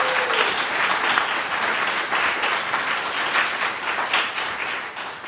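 A congregation applauding with steady clapping that tapers off near the end.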